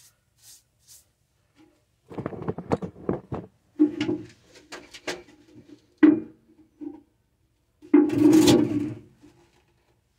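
A couple of faint paintbrush strokes on a wall, then a run of irregular knocks and scrapes with the longest and loudest scrape about eight seconds in.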